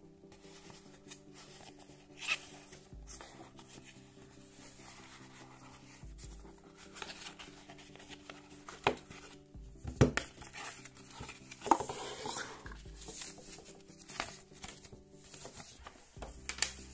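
A cardboard gift box being handled and opened, with scraping, paper rustling and a few sharp taps and clicks, the loudest about two thirds of the way through, as a leather card wallet and a paper leaflet are taken out. Quiet background music plays underneath.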